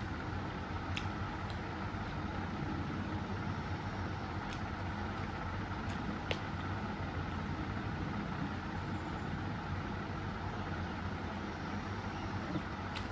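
A steady low mechanical hum and hiss, with a few short clicks and mouth sounds from eating rice by hand off a brass plate.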